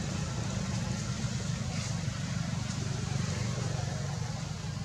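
A steady low engine rumble under an even background hiss.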